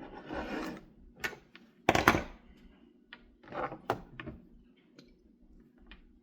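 Handling noises of hand-tool work on a wire: scattered clicks, brief scrapes and knocks, the loudest knock about two seconds in.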